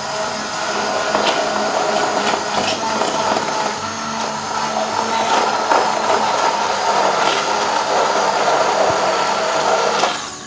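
Stick blender motor running steadily as it blends a pancake batter of flour, milk and egg in a glass bowl, then switching off abruptly near the end.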